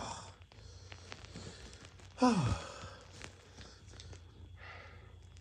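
A person's voiced sigh, falling sharply in pitch, about two seconds in, amid faint rustling.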